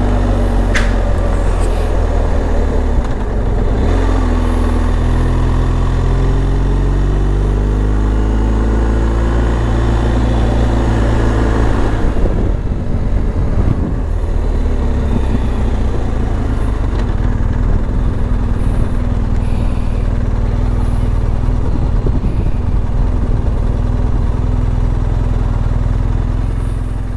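BMW R1250 GS Adventure's boxer-twin engine running while the motorcycle is ridden. The revs climb steadily for several seconds, break off about twelve seconds in, then hold steady at a cruise.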